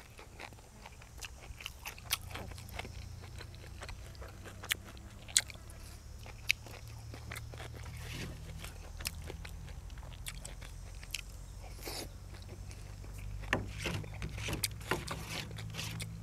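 Close-up chewing and biting of food, with many sharp crisp crunches scattered through, over a low steady rumble that grows louder near the end.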